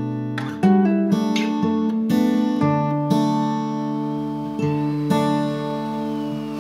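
Acoustic guitar music: chords strummed and plucked one after another, each left ringing.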